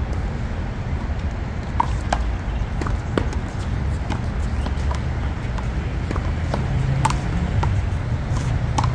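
A one-wall handball rally: sharp, irregular smacks of the ball against the wall and the pavement, over a steady low outdoor rumble.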